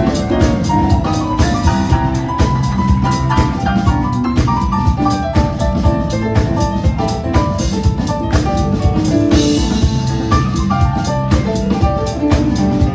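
Live band playing a song: drum kit keeping a steady beat under keyboards and guitars.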